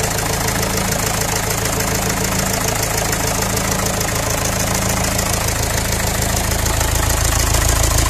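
Mahindra Di direct-injection diesel engine in a CJ3B jeep idling steadily with a rapid, even clatter, running again after sitting unstarted for a month. It gets slightly louder and deeper near the end.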